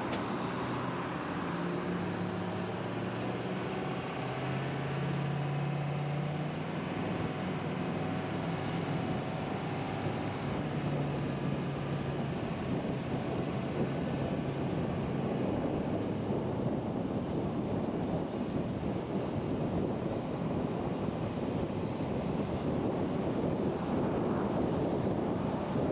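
Car driving and accelerating: a low engine hum in the first half, then steady tyre and wind noise building as it reaches highway speed.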